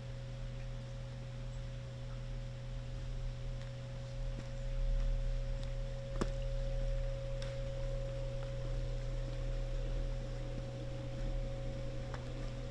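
Steady hum with a constant higher tone held over it, and a few faint clicks.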